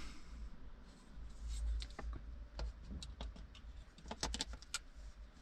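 Light, scattered clicks and taps of plastic cupholder trim parts being handled, with a cluster of quick clicks near the end.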